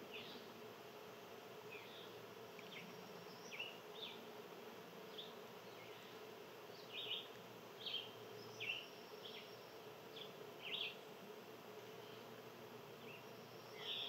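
A steady insect buzz runs under scattered short, high bird chirps, about a dozen of them, the loudest coming in a cluster between roughly seven and eleven seconds in.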